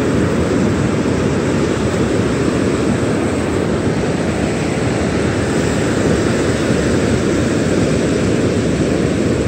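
Steady rushing noise of wind buffeting the microphone, mixed with the wash of small surf breaking and running up the sand.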